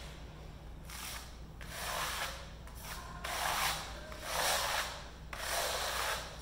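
A steel notched trowel scraping adhesive across the back of an embossed aluminum diamond plate panel, in about five strokes roughly a second apart.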